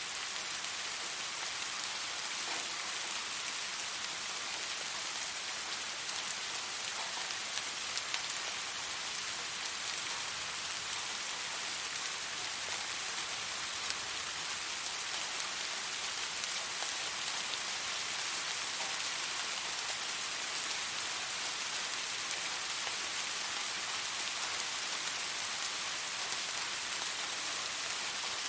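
Steady rain falling on a surface, a continuous even hiss with small scattered drop ticks.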